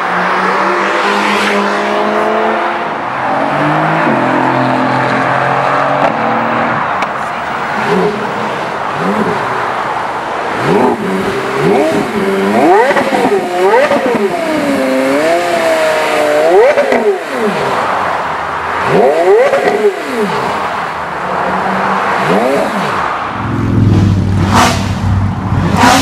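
Traffic passing, then a Porsche Carrera GT's V10 revved in a series of blips, the pitch rising and falling with each one. Near the end a deep engine rumble comes in from another car.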